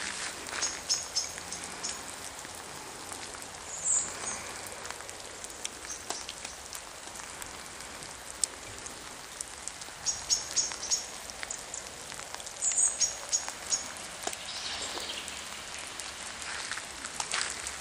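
Steady rain falling, with a bird calling a few times in quick runs of short, high notes.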